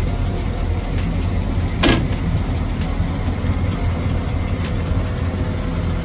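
Engine idling: a steady low rumble, with one sharp knock about two seconds in.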